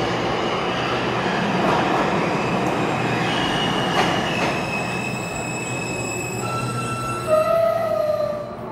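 R160 subway train pulling into an underground station and slowing, with a steady rumble of wheels on rail. Several high whining tones sink slightly in pitch as it brakes, and a louder whine starts about seven seconds in as it nears a stop.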